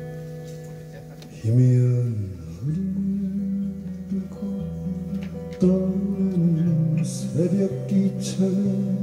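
Acoustic guitar played live with a man singing; the strummed chords ring and fade for about a second and a half, then the guitar and voice come in louder, the voice sliding in pitch on long held notes.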